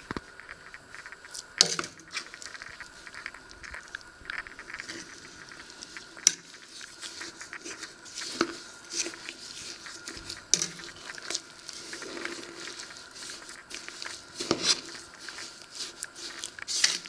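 A metal spoon stirring sugar into fruit in a stainless steel pot: gritty scraping and crunching of the sugar, with a few sharp clinks of the spoon against the pot.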